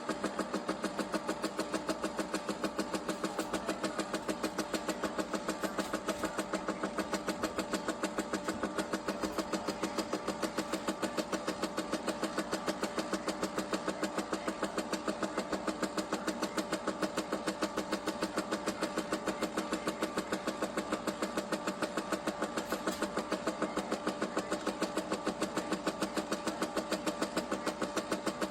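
Countertop nugget ice maker running: a steady motor hum with a fast, even pulsing.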